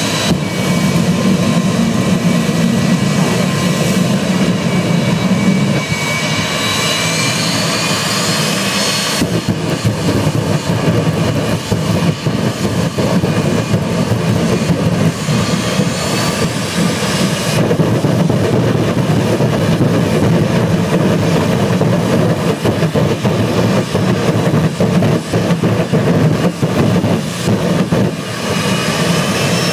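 Jet dragster's turbine engine running at full noise with the afterburner lit, a high whine rising in pitch over the first several seconds over a dense, crackling roar.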